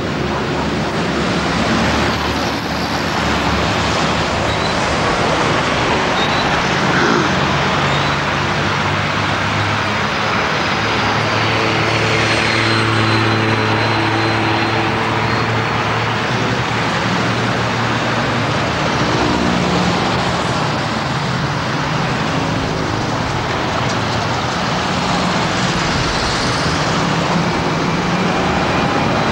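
Street traffic on a busy multi-lane road: cars, a heavy truck and a city bus driving past. The engine drone is strongest about ten to sixteen seconds in, as the truck goes by.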